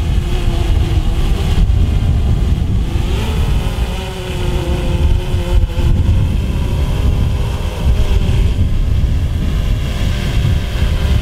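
Small quadcopter drone hovering, its propellers whining in a steady chord that wavers slightly in pitch as the motors hold it against the wind, over heavy wind rumble on the microphone.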